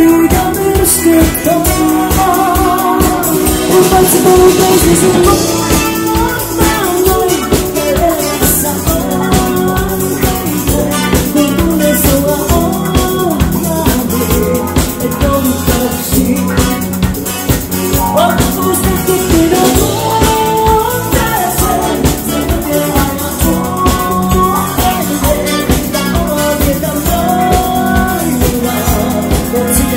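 Live dance band playing with a drum kit keeping a steady beat, bass guitar and keyboards, and a woman singing the lead.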